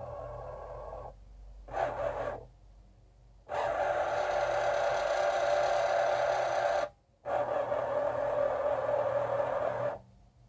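Excalibur Phantom Force self-moving chess board's under-board magnet carriage motors whirring as it slides pieces across the board. The whir runs in several stretches that stop and start, with a short burst about two seconds in and a longer run from about three and a half seconds in. It cuts out briefly and then runs again until near the end.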